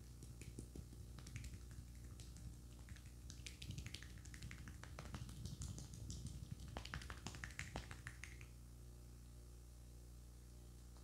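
Barber's hands massaging a cream-covered face, making many quick clicking and tapping sounds that thicken in the middle and die away about eight seconds in, over a faint steady hum.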